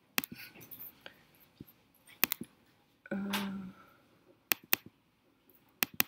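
Sharp computer clicks, scattered and often in pairs, as a laptop is operated to restore a dropped projector connection. A short hum with a steady pitch sounds about three seconds in.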